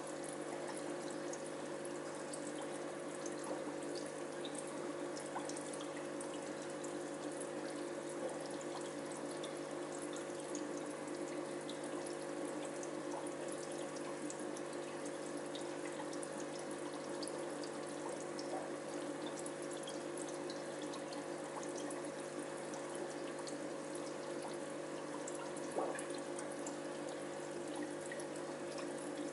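Aquarium water trickling and splashing steadily, with a few small drips, over a steady low hum.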